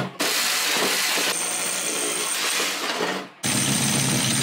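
Corded rotary hammer with a 4-1/4 inch hole saw boring into a brick wall: it runs loud and steady, stops briefly about three seconds in, then starts again with a low hum and a thin high whine.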